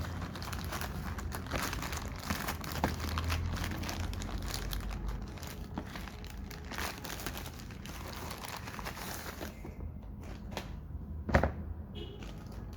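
Product packaging being handled and unwrapped, a dense crinkling and crackling for most of the time, then quieter with a single sharp knock near the end.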